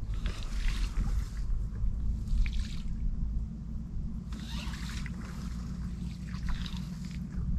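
Shallow marsh water sloshing and trickling, with rustling, as the hunter moves at the water's edge. It comes in about four short bursts over a steady low rumble.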